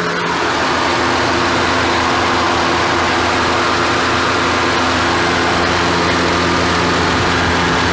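Honda HR-V's four-cylinder petrol engine idling steadily at an even pitch, heard close up in the open engine bay.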